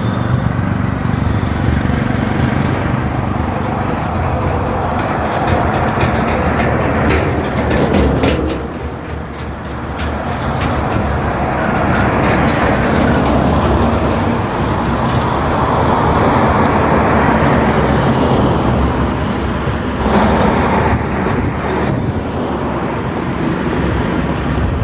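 Heavy truck engines running close by, with road traffic noise: a steady low engine rumble that dips briefly about eight seconds in.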